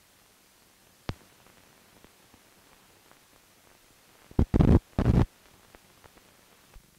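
Old film soundtrack running out on blank leader: faint hiss with scattered clicks and pops, a sharp pop about a second in, then three loud, rough bursts of noise in quick succession about four and a half seconds in.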